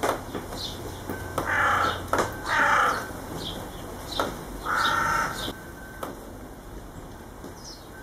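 Three loud, harsh bird calls, each under a second long, the first about a second and a half in and the last about five seconds in, over scattered faint high chirps of small birds.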